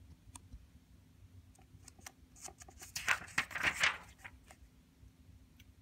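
A book page being turned by hand: paper rustling and swishing about three seconds in, for about a second, with a few faint clicks of handling before it.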